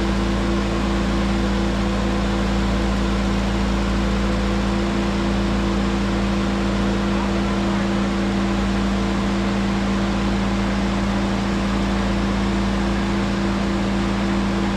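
A machine running steadily: an unchanging drone with a few constant tones over a noisy hiss.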